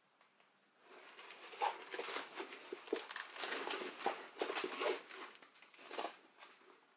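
Rolled diamond-painting canvas in its clear plastic cover film crinkling and rustling as it is turned and unrolled by hand, from about a second in until near the end.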